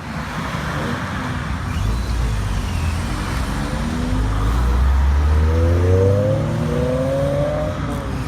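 Honda S2000 four-cylinder engines running as the cars pull away, with one engine revving up in a steady rising pitch from about four and a half seconds in, then letting off near the end.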